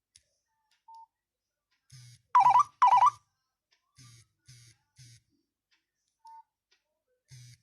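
One of the Nokia 6500 Slide's original ringtones: a sparse electronic pattern of soft buzzy pulses in threes about half a second apart, two loud warbling trill bursts about half a second apart a little over two seconds in, and two short single beeps.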